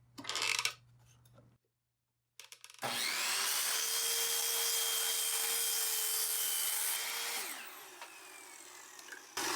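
A power saw spins up about three seconds in and cuts through cedar board for about four seconds, squaring up the pieces. It then winds down with its pitch falling. A brief noise comes just before.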